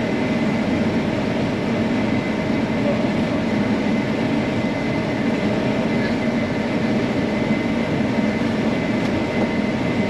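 Combine harvester running steadily while it harvests and unloads grain on the go through its unloading auger, heard from inside the cab as an even drone with a faint high whine above it.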